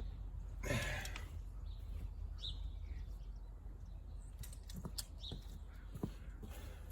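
A bird chirping a few times in short, high calls, with a brief scrape about a second in and a few light clicks of hand work.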